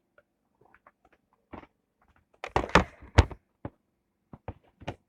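Scattered clicks and knocks, with a louder cluster of thumps about two and a half to three seconds in.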